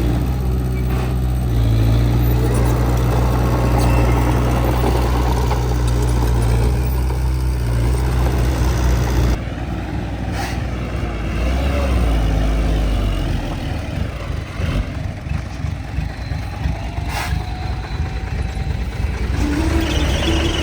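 Heavy diesel engine of earthmoving machinery running steadily. About nine seconds in the sound changes abruptly to a lower, quickly pulsing engine note, and near the end a rising squeal sets in.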